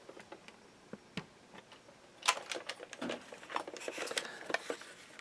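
Handling of a plastic-bodied toy RC excavator with metal parts: scattered light plastic clicks and knocks, sparse at first and coming thicker from about two seconds in.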